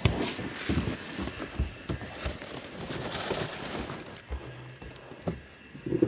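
Handling noise on a phone's microphone: rustling with scattered light knocks and clicks, as the phone is moved about with its lens covered.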